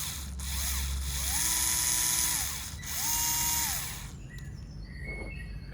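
Worx WX240 4V cordless electric screwdriver with a drill bit fitted, its motor run twice: each time the whine rises as it spins up, holds steady, then falls as it stops. The first run is longer than the second.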